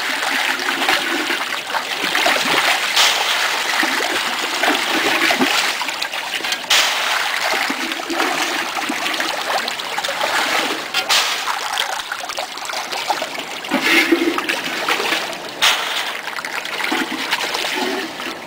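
Water churning and splashing as rainbow trout thrash at the surface while feeding, with a few sharper splashes standing out now and then.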